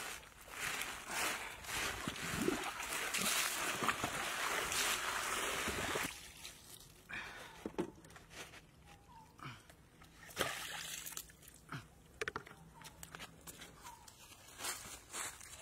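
Water splashing and sloshing as beetles are rinsed in a wicker basket over a basin. It is loud for the first six seconds or so, then gives way to quieter scattered clicks and rustles.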